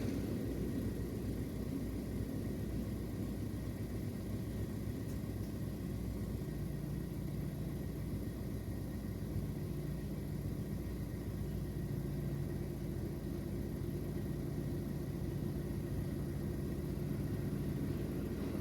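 Car engine running steadily with a low hum, no revving.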